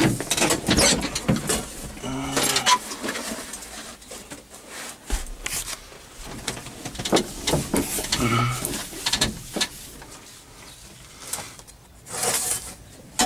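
Irregular knocks, clicks and rustling of a licence plate and clothing being handled inside a tractor cab as the plate is pushed in under a rubber seal. Two short vocal sounds come in, about two and eight seconds in.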